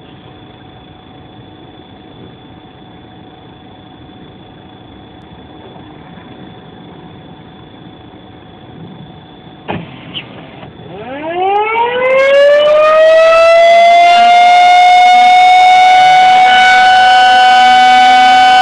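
Outdoor tornado warning siren starting up for a test on mains power: after two sharp clicks about ten seconds in, it winds up from a low growl to a steady, loud, high wail within about three seconds and holds it.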